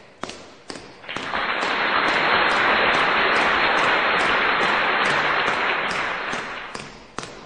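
Crowd applause that starts abruptly about a second in and fades out near the end, over a steady tick about twice a second.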